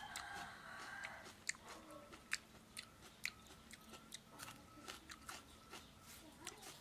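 Someone chewing and biting grilled squid, a run of irregular short clicks and smacks from the mouth.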